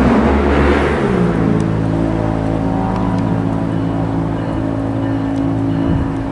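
Diesel locomotive engine running with a steady drone, its pitch stepping down about a second in, with a few faint clicks.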